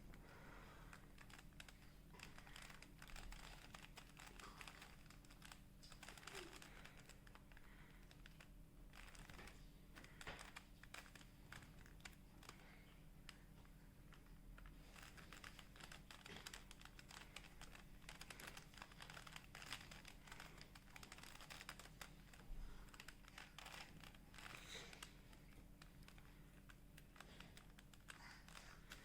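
Faint plastic clicking and clacking of a Rubik's cube's layers being turned by hand, in quick irregular runs, over a steady low hum.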